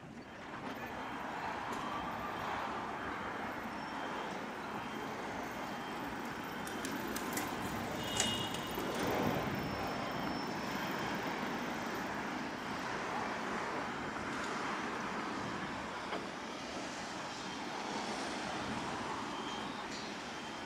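Street traffic going by: a steady hum of road noise, with one vehicle passing closer and louder about eight to ten seconds in.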